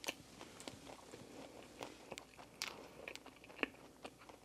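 Faint close-miked chewing of a McDonald's cheeseburger: scattered soft mouth clicks as it is bitten and chewed.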